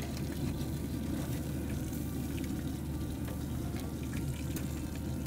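Split lobsters sizzling on a hot wood pellet grill's grate as they are turned over with metal tongs, with scattered faint crackles over a steady low rumble.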